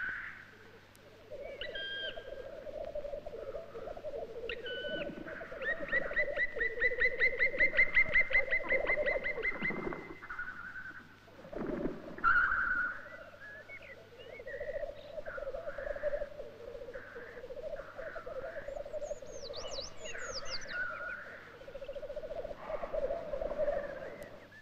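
Forest birdsong with several birds calling: a low wavering call runs through much of it, a fast repeated trill comes from about six to ten seconds in, and high falling whistles come later.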